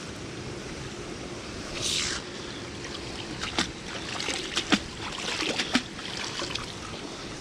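Fishing magnet hauled on its rope up out of canal water against a lock wall: water splashing and running off it, with a few sharp clinks as it knocks against the stone and ironwork.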